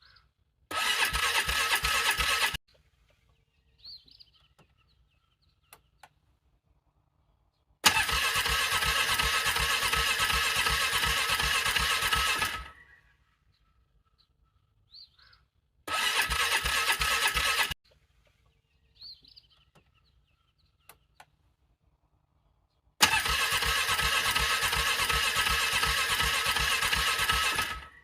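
Vehicle engine being cranked over by its starter in freezing cold, struggling to start: four cranking attempts, two short ones of about two seconds and two longer ones of about five seconds, each a fast even pulsing that stops without the engine catching.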